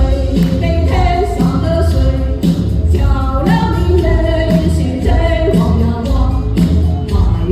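A voice singing a song over backing music with a steady beat.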